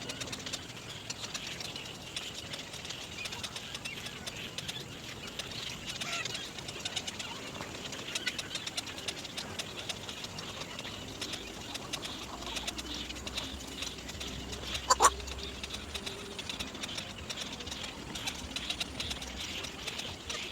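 Birds calling, with many short chirps and chattering notes. A sharp click comes about fifteen seconds in.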